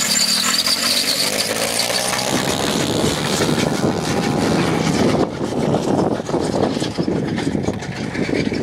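110 cc pitbike's single-cylinder engine revving and pulling away, its pitch rising over the first couple of seconds, over a rough scraping clatter from the heavy air-conditioner unit dragged behind it on a rope.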